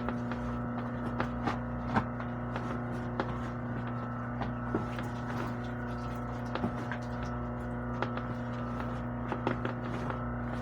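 Steady electrical hum, with light clicks and knocks scattered irregularly through it.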